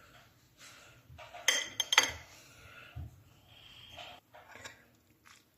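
Dishes and cutlery clinking and knocking, with a quick run of sharp clinks about one and a half to two seconds in.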